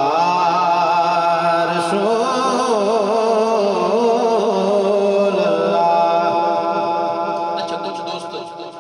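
Unaccompanied chanting of durood (salawat, blessings on the Prophet) by male voices, a long melodic line with wavering pitch. It settles into a held note and fades away near the end.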